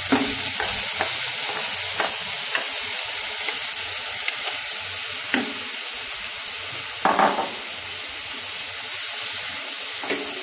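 Yogurt-marinated spice paste sizzling as it fries in hot oil, stirred with a wooden spatula that knocks against the pan now and then, with a longer scrape about seven seconds in.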